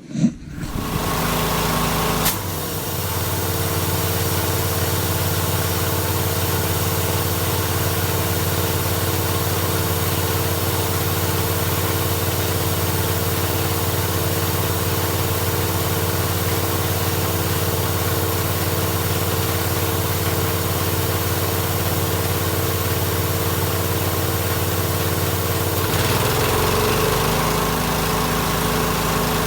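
Small gas engine of a Ridgid wheelbarrow air compressor starting up and running steadily with the compressor pump, back in running order after its clogged fuel cut-off valve was cleaned. It catches right at the start, settles into an even run about two seconds in, and its pitch dips and recovers briefly near the end.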